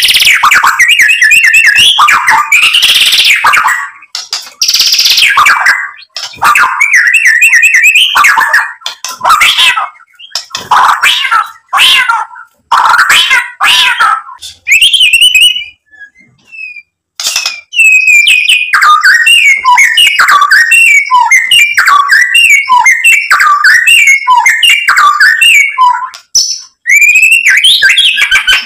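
White-rumped shama (murai batu) singing loudly in full song: fast runs of varied whistled and chattering notes. It breaks off for about a second and a half around the middle, then goes into a long stream of quick notes.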